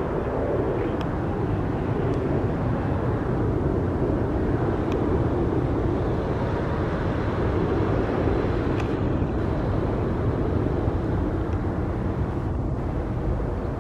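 Airbus A330-200's twin turbofan engines at takeoff thrust during the takeoff roll: a steady, deep rushing rumble.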